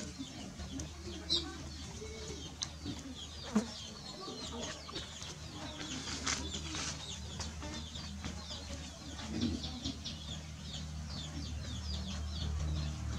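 Chickens clucking and small birds chirping in a rural yard, with two sharp clicks in the first few seconds and a low steady hum growing louder near the end.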